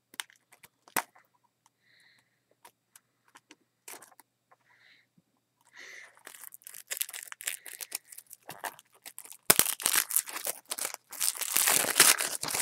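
Plastic shrink wrap on a Blu-ray case being picked at with fingernails in faint scattered clicks. From about six seconds in it is torn and crumpled off with crinkling that grows loud in the last three seconds.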